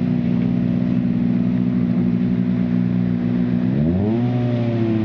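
Ford Fiesta WRC rally car's 1.6-litre turbocharged four-cylinder engine running steadily at idle, then revved in neutral: the pitch climbs sharply about four seconds in, holds and begins to ease down near the end.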